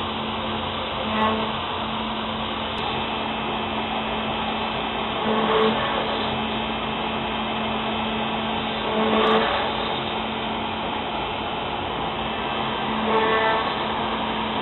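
Router spindle on a Joe 2006 CNC router running steadily as a 1/4-inch solid carbide O-flute spiral bit cuts 3/4-inch HDPE plastic, with a brief louder swell about every four seconds.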